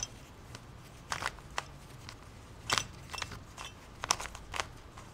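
Plastic windmill cube being turned by hand: its layers give off irregular short clicks and clacks as they rotate and snap into place.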